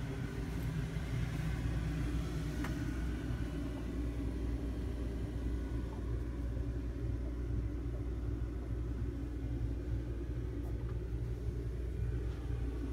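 Steady low machine rumble heard inside a cabin cruiser's cabin, with no change in pitch or level. A faint click comes about two and a half seconds in.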